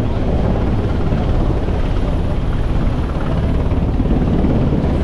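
A helicopter hovering off a ship's deck, its rotor making a steady, loud chop.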